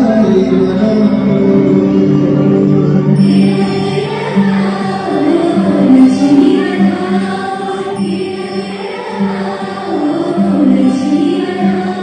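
A song with singing voices over instrumental music.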